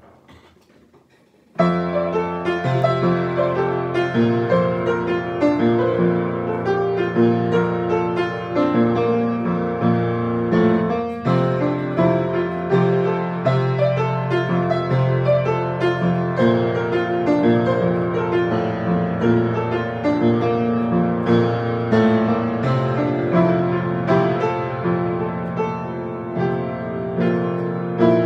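Piano music: keyboard chords and melody that start suddenly about a second and a half in and then play on steadily with many note changes.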